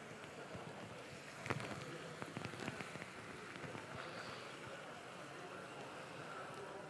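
Rice crackling and sizzling in a thick paella pan over a powerful gas paella burner, with a steady rush of flame underneath and scattered pops, thickest about a second and a half in. The crackle is the sign of the socarrat forming as the last of the stock dries off.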